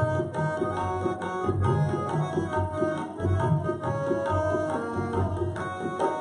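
Instrumental kirtan passage without singing: tabla playing a steady rhythm under a melody on harmonium.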